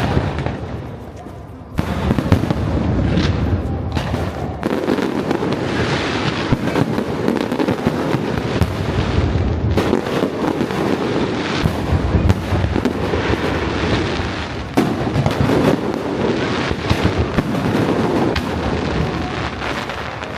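Fireworks display: a dense, continuous run of bangs and crackling bursts, with a brief lull about a second in.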